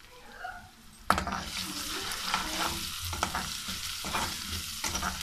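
Sliced onions and ginger-garlic paste frying in oil in an aluminium pot, sizzling, with a slotted metal spatula stirring them in repeated scraping strokes against the pot. The sizzle grows suddenly louder about a second in, once the stirring starts.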